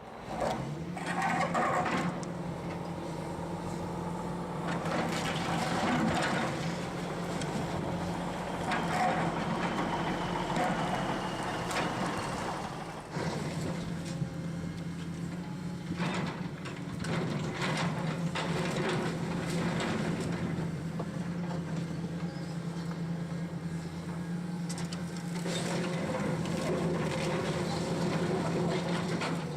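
Heavy demolition machine's engine running steadily, with repeated cracking, knocking and crashing of timber and debris as a building is torn down.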